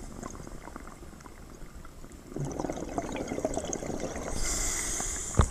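A scuba diver breathing through a regulator underwater: a burst of exhaled bubbles gurgling from about two seconds in, then the regulator's hiss as the next breath is drawn near the end. A sharp knock comes right at the end.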